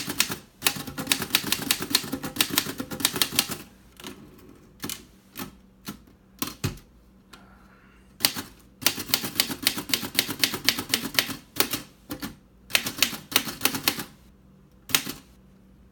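1951 Erika Model 8 manual typewriter being typed on: runs of quick key strikes, type bars snapping against the platen, broken by pauses with a few single strokes.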